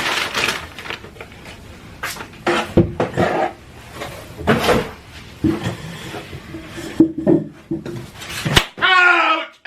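Scuffling and clattering, with knocks and short cries. Near the end comes a long, wavering, bleat-like cry.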